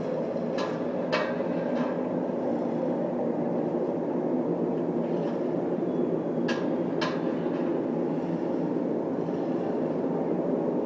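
A loud, steady, low droning hum of many layered tones with no clear source: the unexplained 'strange sound in the sky' that residents reported. Sharp short clicks come in a quick run near the start and again a little past halfway.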